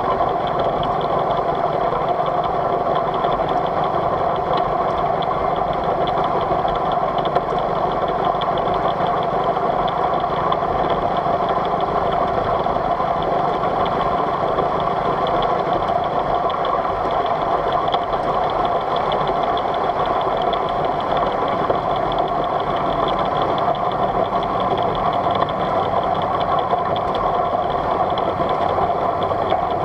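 Miniature live-steam locomotive (a Polly V) running along the track: a steady, fast chuffing of exhaust beats mixed with the running noise of the engine.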